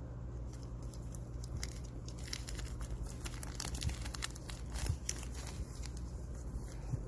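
Crinkling handling noise: a run of small crackles and clicks, thickest in the middle, over a steady low hum.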